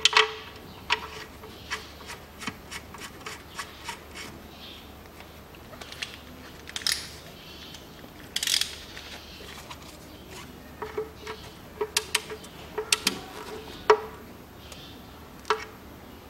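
Scattered metallic clinks, taps and scrapes of a hand tool as the oil-pan drain plug is screwed back in and tightened, a few clinks ringing briefly. Two short scraping rustles come near the middle.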